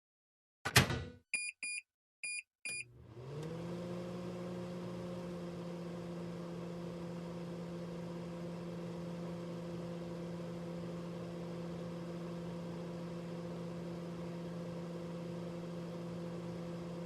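Microwave oven: a thud like the door shutting, four short keypad beeps, then the oven starts up and runs with a steady hum.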